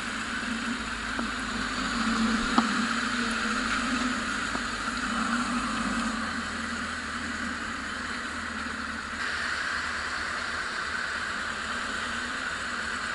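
Yamaha FZS600 Fazer's inline-four engine running steadily as the motorcycle rolls to a stop in traffic and then idles.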